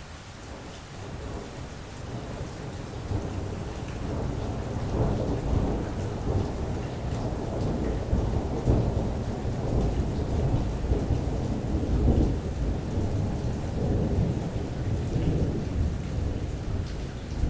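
Thunder rumbling over steady rain. The rumble builds over the first few seconds, then rolls on in long deep waves while the rain keeps falling.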